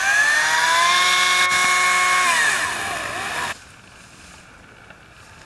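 Electric chainsaw motor winding up to a steady high whine, running briefly, then winding back down. The sound cuts off abruptly about three and a half seconds in.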